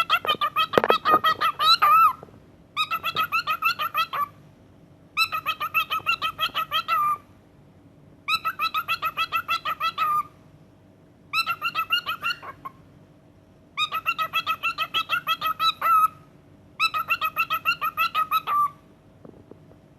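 A parrot calling in repeated bouts of rapid, evenly pulsed notes, about six a second. There are seven bouts of roughly two seconds each, separated by short pauses of about a second.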